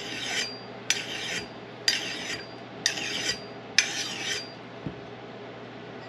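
Handheld sharpener stroked along the steel edge of a tomahawk. There are five short scraping strokes about a second apart, stopping a little after four seconds in.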